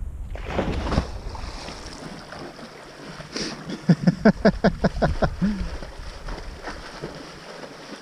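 Wind buffeting a helmet-camera microphone as a low rumble. About four seconds in comes a quick run of eight or so short voice-like sounds, ending in a falling note.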